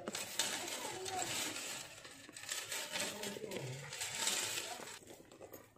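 A faux-leather handbag being handled and turned over: rustling and scraping with many light clicks and clinks from its metal chain strap and fittings.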